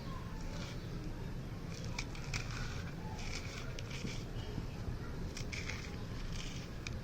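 Gritty sand-cement texture being crumbled between the fingers: irregular crackling and grainy crunching in short bursts, over a steady low hum.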